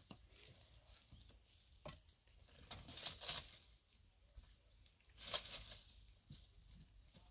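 Dry brushwood and twigs rustling and crackling as they are handled and pulled from a pile, in a few short faint bursts, the loudest about five seconds in.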